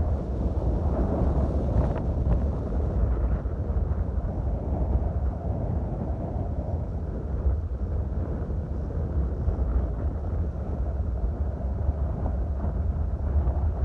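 Strong wind buffeting the microphone, a steady deep rumble that swells and eases with the gusts.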